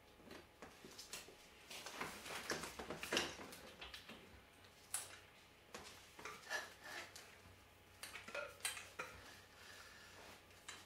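Light metallic clinks and clicks of spacers, washers and axle fittings being handled onto a hub motor's axle as the wheel is seated in the rear dropouts, scattered irregularly with handling rustles.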